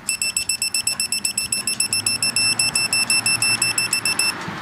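Kobalt digital torque wrench beeping rapidly, about eight beeps a second for some four seconds, then stopping: its signal that the set torque of 85 ft-lb has been reached on an ARP head-stud nut.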